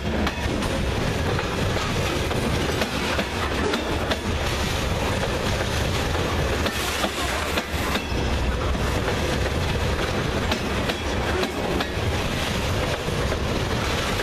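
Freight train of covered hopper cars rolling past close by: a steady rumble of steel wheels on rail, with scattered clicks as the wheels pass over the track.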